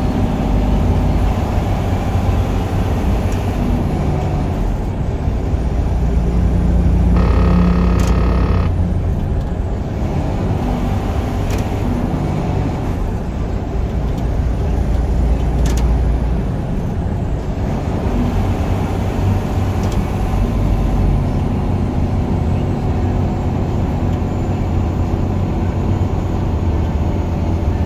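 Steady low engine and road drone inside a semi-truck cab at highway speed. About seven seconds in, a brief tone with several pitches sounds for about a second and a half.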